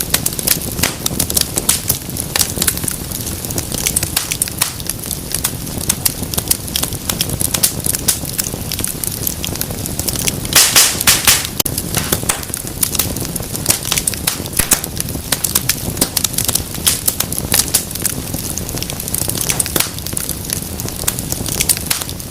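Wood fire burning in a fireplace: steady dense crackling over a low rumble of flames, with a cluster of sharp, louder pops about halfway through.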